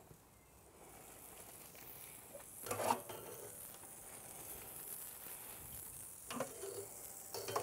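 Meat sizzling faintly on a hot Tuscan grill set over wood-fired-oven coals, with short metal knocks from tongs against the grill about three seconds in, at about six seconds and near the end.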